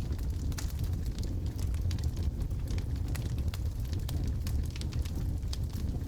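Logs burning in a fireplace: a steady low rumble under many quick, sharp crackles and pops from the burning wood.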